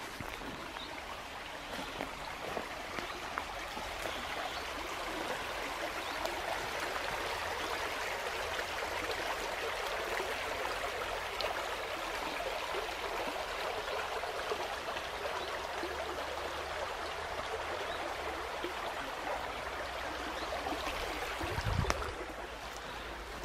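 Woodland stream flowing steadily. A dull low thump near the end.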